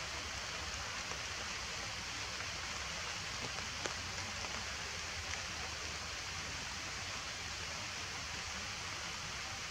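Steady rain falling, an even hiss with a few sharper ticks of single drops, the clearest about four seconds in.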